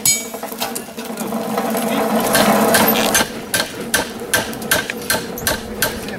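Hammer blows driving a hot square iron bar into a wooden ox-yoke beam to burn and square a hole for the staple, a steady run of about three blows a second through the second half. At the very start, a single ringing strike of metal on the anvil.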